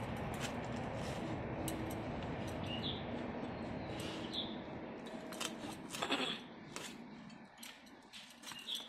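Bhetki (barramundi) being cut against a boti, the fixed curved blade, with scattered clicks and scrapes as the blade goes through scaly skin and flesh. A steady background hiss drops away after a louder burst of noise about six seconds in, and a few short high chirps sound over it.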